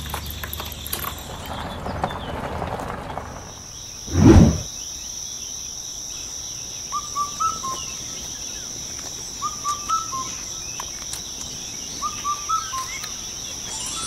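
A dull thump about four seconds in, followed by a steady high insect drone. A bird calls three times over it, each call a short phrase of three or four chirps.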